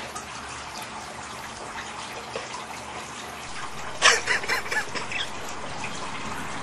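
Steady trickle of running water. About four seconds in, a man bursts into a loud, theatrical wailing sob, followed by a few shorter sobs.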